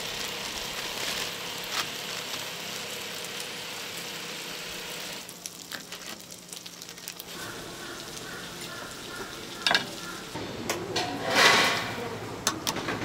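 Steady sizzling hiss from the stall's steaming pans of tteokbokki broth, with plastic packaging crinkling and a knife cutting on a wooden chopping board. A few louder clatters come near the end.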